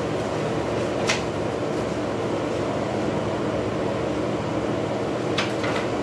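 Steady mechanical hum of a window air conditioner running, with a few brief rustles of plastic wrapping and paper being handled about a second in and near the end.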